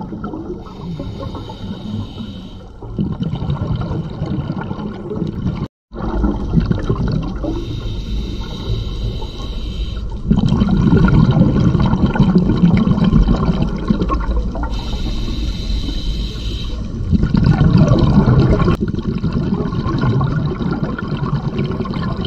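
Underwater sound picked up by a diving camera: a continuous rushing, bubbling wash of water. It briefly cuts out about six seconds in and grows louder in the second half.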